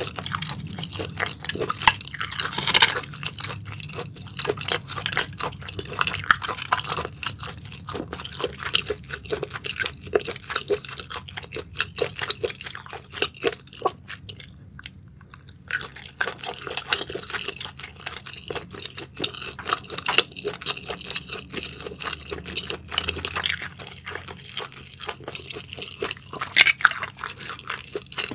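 Close-miked chewing of spicy sauced scallops: wet, sticky mouth sounds and soft crunches in an irregular stream, with a brief pause about halfway through.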